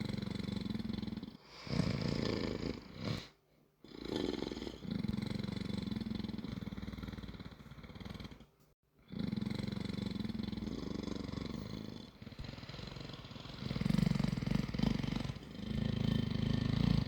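Creature sound effects: a series of low, rough growls and rumbles, about half a dozen separate calls of one to four seconds each with short gaps between them, the last few louder.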